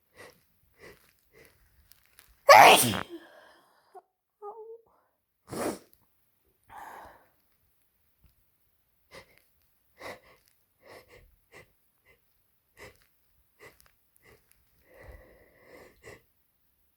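A person with a head cold sneezing: one loud sneeze about two and a half seconds in and a smaller one a few seconds later, with many short, quieter nasal and breathy sounds in between.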